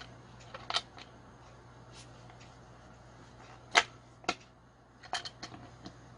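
Locking pliers clicking and clacking against a chainsaw's steel chain-brake band and clutch drum while prying loose a brake that has locked on. There are a few sharp metallic clicks about a second in, a louder single clack near four seconds, and a quick cluster of lighter clicks near the end.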